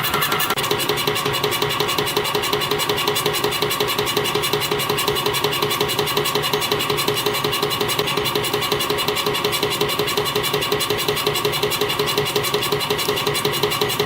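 CNC compression spring coiling machine (YHM CF-310) running steadily, coiling 0.4 mm wire into springs: a fast, even clatter of ticks over a steady mechanical whine.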